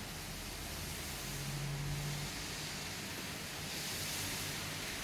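Steady whooshing hiss of computer cooling fans running on a powered-up test-bench motherboard, with a brief low hum about a second in.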